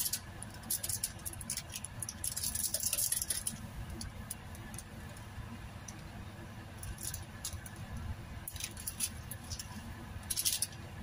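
Small plastic seasoning sachets from instant fried noodles crinkling as they are torn open and squeezed out: scattered crisp rustles and clicks, with a longer rustle a couple of seconds in.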